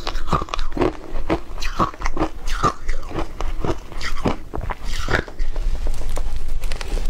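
Close-miked biting and chewing of matcha shaved ice, a dense run of irregular crisp crunches as mouthfuls of frozen ice are bitten through.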